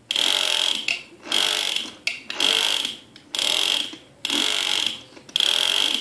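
Toy hammer drill making its drilling sound in short bursts, about one a second, each cut off within a second.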